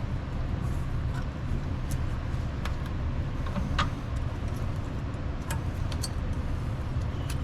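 Steady low drone of a shop air compressor running, with scattered light metal clicks and clinks from brake parts and tools being handled.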